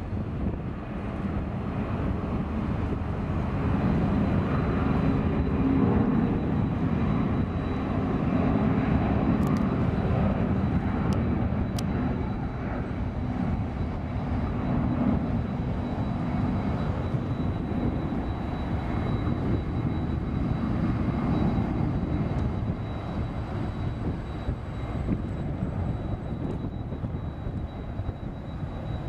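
C-17 Globemaster III's four Pratt & Whitney F117 turbofans at takeoff power through the takeoff roll and climb-out: a deep, dense jet noise that builds over the first few seconds and stays strong, easing slightly near the end as the aircraft climbs away. A thin steady high whine runs through it.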